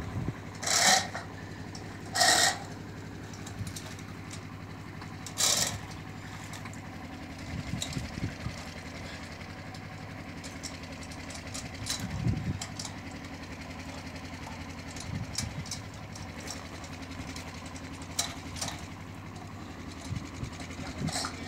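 A small engine running steadily with an even, low hum, likely powering the pump or compressor that feeds the hoses going into the pit. Several short bursts of rushing noise come in the first six seconds, with smaller ones later.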